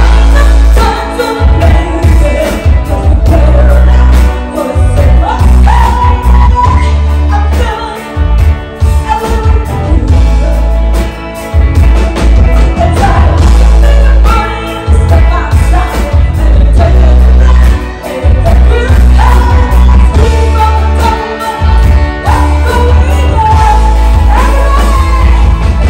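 Live rock band performing loudly with a female lead singer belting into a microphone over electric guitars and drums, with a heavy, booming bass through the PA.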